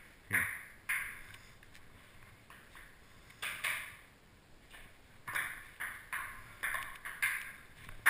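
Hollow clicks of a ping-pong ball striking hard surfaces: about a dozen short, sharp hits, two near the start, then a pause of about two seconds, then a quicker run of hits in the second half.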